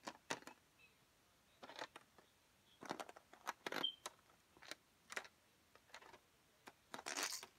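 Irregular light clicks and short rustles of handling, with a longer scraping rustle near the end.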